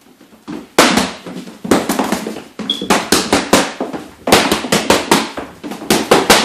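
Boxing gloves striking handheld focus mitts: a series of sharp slaps, about twenty punches thrown in quick bursts of two to four.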